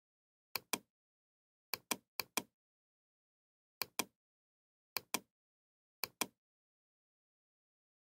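Computer mouse button clicking six times at irregular intervals, each click heard as a quick pair of sharp snaps.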